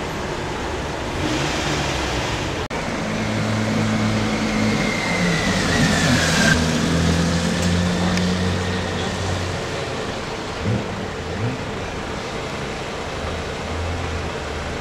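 Slow, congested road traffic: cars and motorcycles crawling through a jam, with steady engine and tyre noise. A low engine hum swells from about four to nine seconds in. During it a high whine rises and then slowly falls, cutting off about six and a half seconds in.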